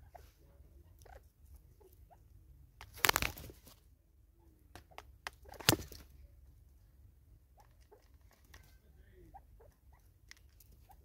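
Natal spurfowl pecking and scratching at food on a tree stump: scattered light taps and clicks, with a louder scuffle about three seconds in and one sharp knock just before six seconds.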